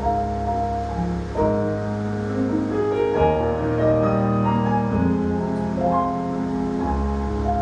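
Piano music for ballet class exercises: held chords and melody notes, changing every second or so.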